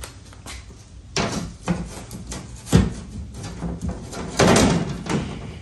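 A thin aluminum sheet being laid onto an aluminum jon boat bench seat and shifted into place: a series of knocks and clatters, the loudest a little under three seconds in, then a longer rattling scrape about four and a half seconds in.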